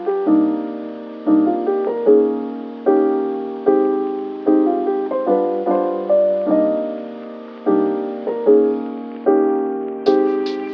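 Soft lo-fi piano background music, a chord struck about once a second and left to ring; a beat with crisp ticks comes in near the end.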